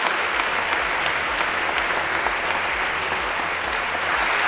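Audience applauding steadily, a dense crackle of many hands clapping at once.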